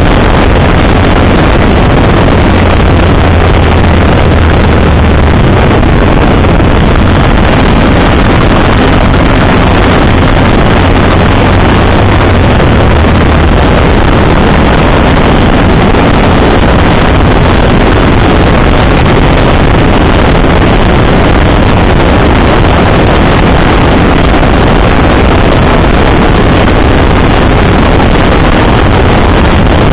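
Motorcycle under way at cruising speed: a loud, constant rush of wind buffeting the microphone, with the engine's low hum beneath it.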